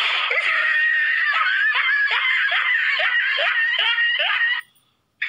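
High-pitched, rhythmic laughter, about three pulses a second, cutting off abruptly near the end.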